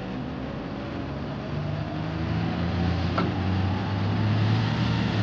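Single-deck bus's diesel engine running as it drives past, a low hum that grows louder over the second half.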